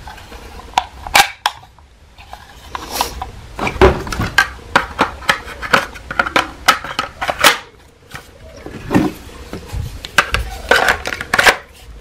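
White plastic attachments of a Xiaomi Mi G10 cordless stick vacuum being handled and fitted together: a run of sharp plastic clicks and knocks, with short pauses.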